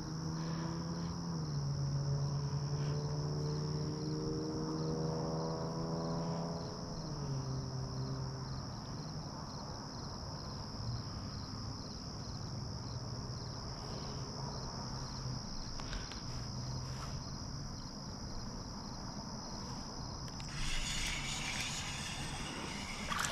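Steady, high insect chorus, with a low hum that shifts pitch a couple of times in the first several seconds. Near the end the chorus drops away under a rustling noise.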